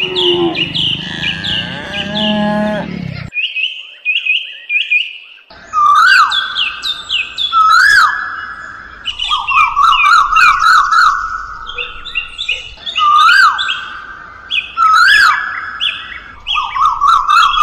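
Birds chirping loudly and continuously, a looped recording of repeated calls: quick falling chirps and whistled swoops that rise and fall. A lower, drawn-out animal call sounds beneath them for the first three seconds or so.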